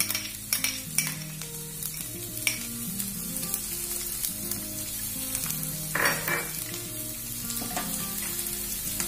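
Chopped garlic and ginger sizzling in hot oil in a frying pan as they are scraped in from a small bowl, with a few spoon clinks against the bowl and pan near the start and a louder clink about six seconds in.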